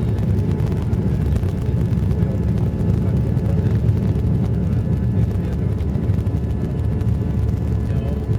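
Airliner cabin noise during takeoff: a steady low rumble of engines and rushing air, heard from inside the passenger cabin.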